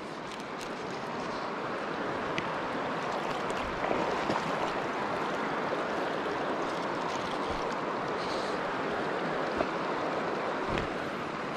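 Shallow mountain trout stream rushing over rocks in a riffle close by, a steady broad wash of water with a few small knocks.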